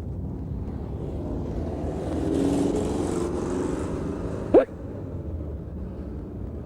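Street traffic rumble, with a motor vehicle passing that swells and fades over a couple of seconds. About four and a half seconds in comes one short, sharp vocal sound rising quickly in pitch.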